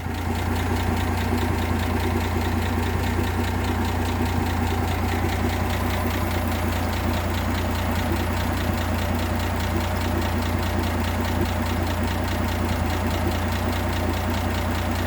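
1958 AMC Rambler Super's engine idling steadily and evenly. The misfire is gone, which the owner puts down to a faulty original distributor cap now replaced.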